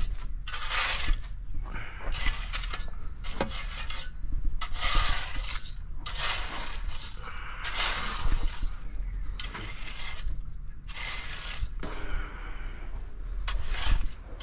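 A landscape rake dragged back and forth through loose sand, making repeated gritty scraping strokes about one a second as the sand is spread out for a paver base.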